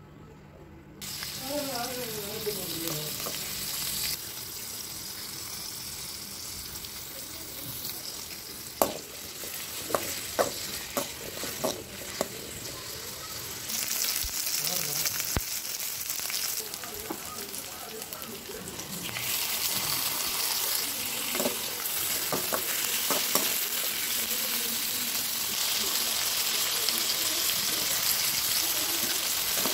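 Onions, garlic and tomatoes frying in a metal pan: a steady sizzle that starts about a second in and gets louder in two steps, with scattered knocks of a spatula stirring against the pan.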